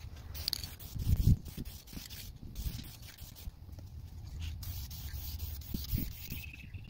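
Aerosol spray can of Dupli-Color acrylic enamel clear coat hissing in several bursts, the longest in the second half, as a light first coat goes onto a painted part. A low bump about a second in.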